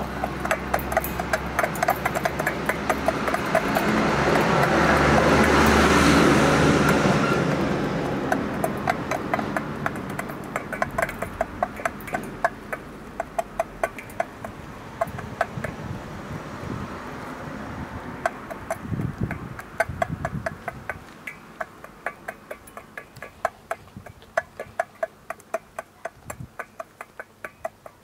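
Hens pecking corn from a stainless steel bowl: a quick, uneven run of sharp ticks as their beaks strike the metal. A passing vehicle swells and fades about four to ten seconds in.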